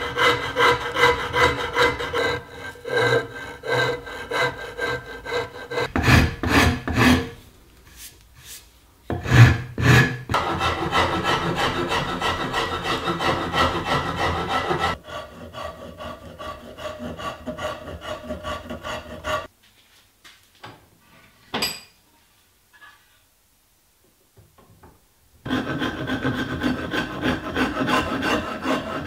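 Hand file and rasp working glued-up wooden table legs: runs of quick, rhythmic rubbing strokes, with a few heavier strokes about a third of the way in. Past the middle the filing stops for several seconds, broken only by a single click, then resumes near the end.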